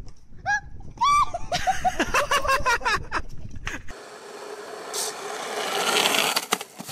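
High-pitched yelps and rapid laughter from people on a slackline. About four seconds in, a longboard's wheels rolling on rough asphalt, growing louder as the board comes closer, with a few sharp clicks near the end.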